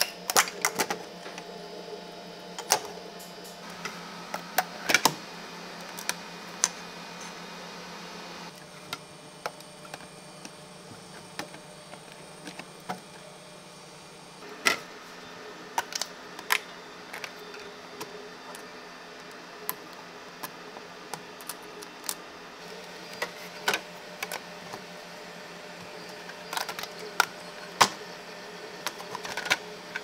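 Printed plastic parts clicking and snapping free as a flexible steel 3D-printer build sheet is bent, in irregular sharp clicks over a steady machine hum.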